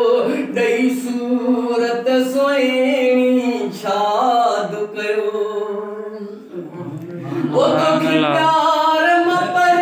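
A man singing a naat unaccompanied into a microphone, drawing out long, wavering held notes. The singing eases off about six seconds in, then swells back up about a second later.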